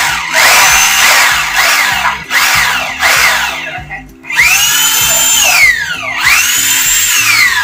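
Bosch GBH 2-24 rotary hammers run briefly with no load, about five times. Each time the motor whines up in pitch, holds, then winds down when the trigger is released. There is a short pause a little past halfway, and a longer run after it.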